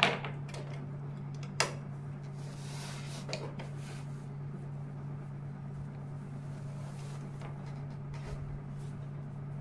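Cloth being smoothed and arranged by hand at a sewing machine under a steady low hum, with two sharp clicks in the first two seconds and a few faint ticks later.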